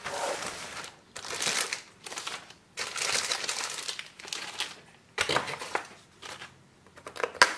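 Small plastic accessory bags crinkling and rustling in several bursts as they are handled and set down on a table, with a sharp tap near the end.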